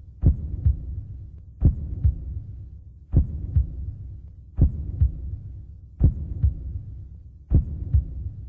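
Heartbeat sound effect on the soundtrack: a low lub-dub double thump, about every second and a half, over a low steady hum.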